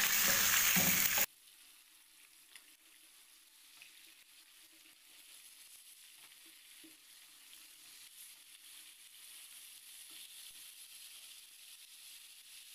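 Rohu fish steaks shallow-frying in vegetable oil in a nonstick pan: a faint, steady high sizzle, with a few light clicks as metal tongs turn the pieces. The sound is louder in the first second and drops abruptly about a second in.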